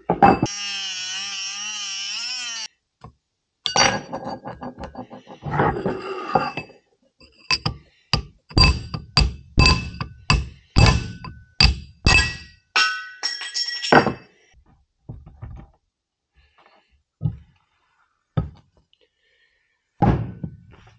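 A Dremel rotary tool whines for a couple of seconds, its pitch wavering as it cuts. Then a hammer strikes a chisel set against the seized front bearing on a rotary engine's eccentric shaft to split it off: a long run of sharp, ringing metal blows, about two a second at their fastest, thinning to a few lighter knocks near the end.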